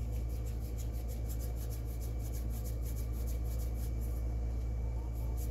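Hands rolling soft pretzel dough into a rope between the palms, a faint soft rubbing, over a steady low hum.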